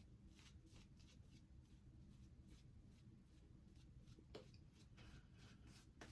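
Faint, repeated scraping strokes of a Wilkinson Sword double-edge safety razor cutting through lathered stubble on the final pass, several strokes a second at first, then fewer.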